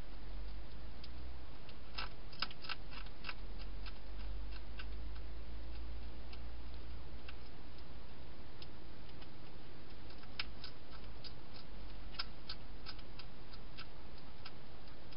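Hedgehog crunching food inside a plastic feeding box: irregular sharp clicks, some in quick clusters, over a steady hiss.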